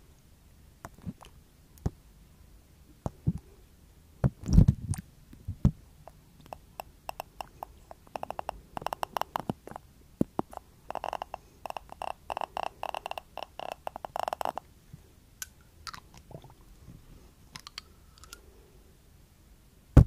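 Glass dropper pipette clicking and tapping against a small glass dropper bottle close to the microphone. Scattered clicks and a few low thumps come about four to five seconds in, then long runs of rapid, slightly ringing glass taps, thinning out near the end.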